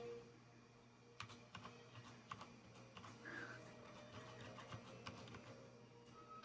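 Typing on an Anne Pro 2 mechanical keyboard with Cherry MX Brown tactile switches: faint, irregular keystrokes that start about a second in.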